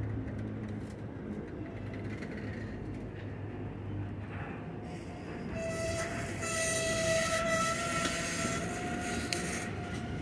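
Diesel freight locomotive running with a steady low rumble, then sounding one long air-horn blast that starts about halfway through and is held for about four seconds, with a rushing hiss over the horn's chord.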